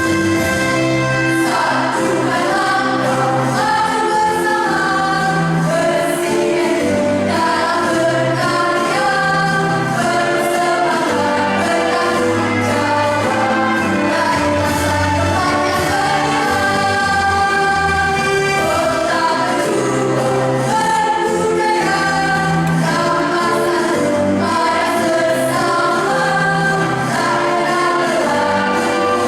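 A junior high school choir singing a piece in several voice parts at once, held notes moving from chord to chord.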